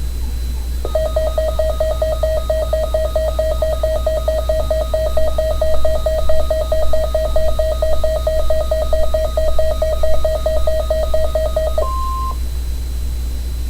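Emergency Alert System alert tone: a fast-pulsing beep that runs for about eleven seconds, then a short, higher steady beep before it cuts off. The tone heralds a broadcast flood warning.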